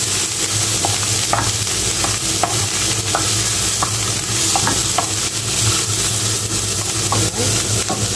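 Julienned carrots, onion and chili sizzling in oil in a frying pan while being stir-fried with a wooden spatula, which knocks and scrapes against the pan again and again at an uneven pace.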